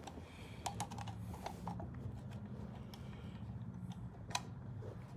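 A few faint, sharp clicks and light handling noises, several close together about a second in and one more near the end, over a faint low steady hum.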